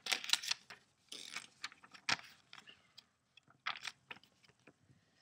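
Paper leaflets and a small manual rustling and crinkling as they are handled, in short crackly bursts near the start and about a second in, with a sharp click about two seconds in and lighter ticks after.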